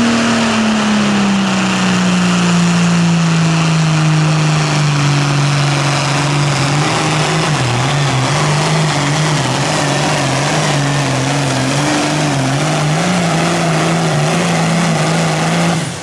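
Classic super stock pulling tractor's engine at full throttle, dragging a weight-transfer sled, its pitch sinking steadily as the sled loads it down and then wavering. It cuts off abruptly near the end as the pull ends.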